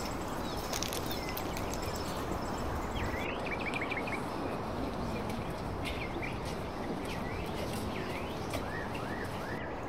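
Small birds chirping in short runs of quick notes, first about three seconds in and again several times later, over a steady hiss of outdoor background noise.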